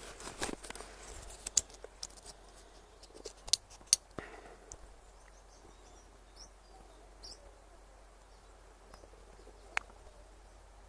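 Sharp crackles and clicks of a small white variety label being handled and unfolded between the fingers close to the microphone, loudest about three and a half to four seconds in, then dying away. Faint bird chirps follow.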